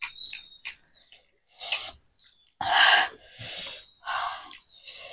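Close-miked eating noises: a few short wet mouth clicks and smacks, then a series of sharp, airy sucking sounds through the mouth, the loudest about three seconds in. This happens while eating chicken momos with a spicy sesame achar.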